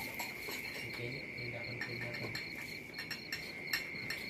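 Crickets chirping in a steady, continuous high trill, with a few short clicks and knocks in the second half.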